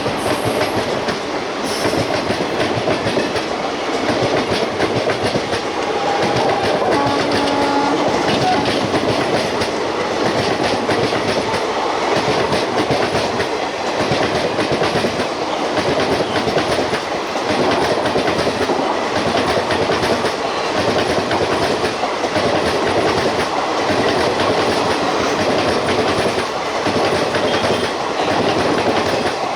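Express passenger train running past and gathering speed, its wheels clattering over the rail joints in a steady clickety-clack rhythm.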